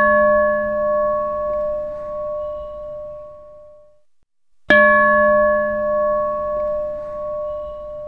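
A large church bell struck once, ringing on and slowly fading with a wavering pulse until it dies away about four seconds in. It is struck again a little past halfway and rings out the same way.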